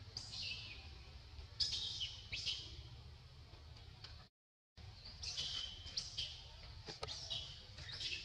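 Birds chirping: repeated short, high, falling chirps in little clusters over a faint low background hum. The sound cuts out for about half a second a little past the middle.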